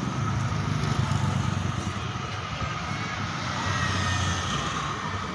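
Sleeper coach bus's diesel engine running with a steady low hum.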